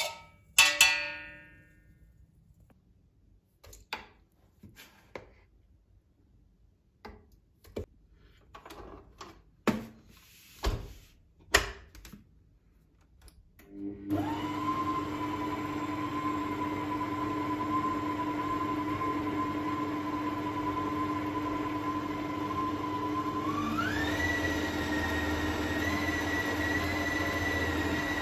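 Scattered knocks and taps, with a thump just after the start. Then a Bosch OptiMUM stand mixer starts about halfway through and runs its dough hook through whole-wheat flour with a steady motor whine. About ten seconds later the whine steps up in pitch as it is switched to a higher speed.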